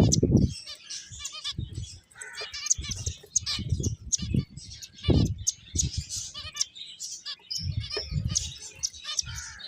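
Several pet finches chirping: many short, high calls and quick trilled notes overlapping. Soft low thumps come in among them now and then.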